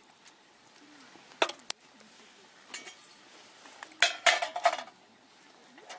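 Dishes and cutlery clinking as they are gathered up: two sharp clinks about a second and a half in, then a quick rattling cluster of clinks around four seconds in.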